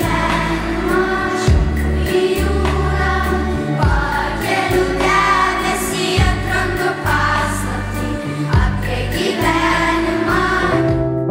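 A children's choir singing a song over instrumental accompaniment with a low bass line. The song breaks off shortly before the end.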